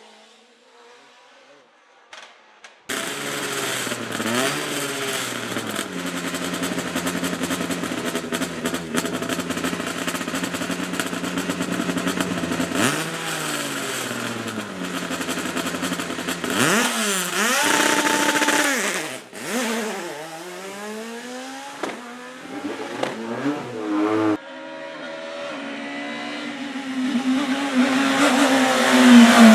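Racing car engines at hard throttle on a hill climb, the pitch climbing and dropping again and again through gear changes and lifts. The engine sound comes in abruptly about three seconds in, and near the end another car approaches and grows loudest.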